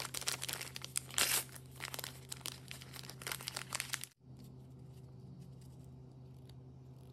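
A small plastic blind-bag wrapper crinkling and tearing as it is ripped open by hand, for about four seconds before cutting off suddenly. A few faint clicks follow.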